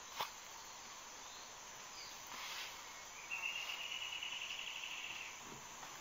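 Amazon rainforest ambience: a steady insect chorus, with a sharp click just after the start, a short call about two and a half seconds in, and a rapid, even trill from about three to five seconds in.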